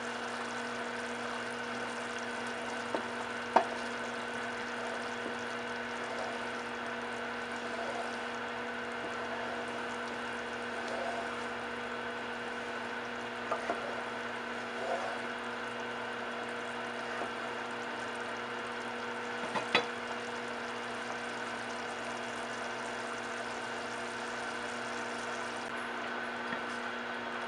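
A pot of chili simmering and being stirred with a wooden spoon, which knocks against the pot a few times, the loudest knocks about 3.5 and 20 seconds in, over a steady hum.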